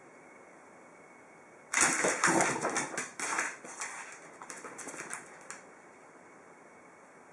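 A toy poodle and a French bulldog play-fighting on a hardwood floor: a sudden scuffle of rapid clicking and scrabbling, claws on the floor, that starts about two seconds in, is loudest at first, and dies away in scattered clicks after about four seconds.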